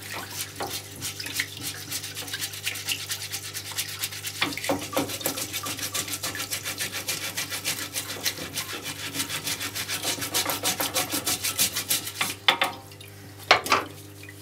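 Wet brush scrubbing an oily engine part in a parts-washer basin, quick back-and-forth strokes several a second, over a steady low hum from the washer's running pump. The scrubbing stops near the end, followed by two short knocks.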